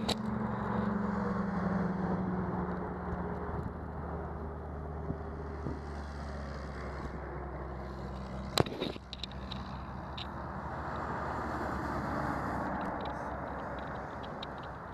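Road traffic going by: a car passes near the start, its low drone slowly falling in pitch, and the traffic noise swells again later. A single sharp click comes a little past the middle.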